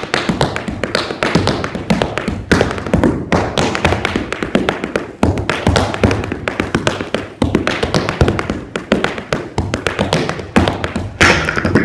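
Tap shoes with metal taps striking a hard studio floor: a solo tap dance of rapid, dense heel and toe strikes in a continuous rhythm.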